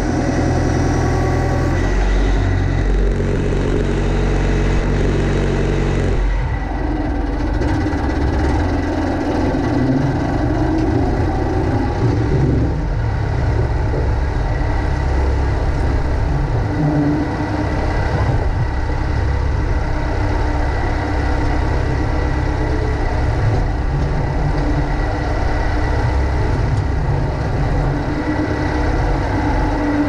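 Massey Ferguson MF50E backhoe's diesel engine running steadily as the machine works the gravel driveway, its note shifting about six seconds in.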